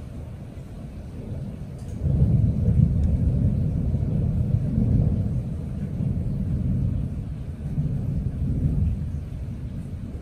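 Thunder rumbling: a deep low rumble swells suddenly about two seconds in, rolls on with slow surges for several seconds, then gradually fades near the end.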